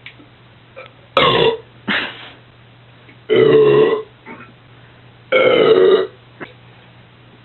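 A man belching loudly four times: two short burps, then two longer drawn-out ones.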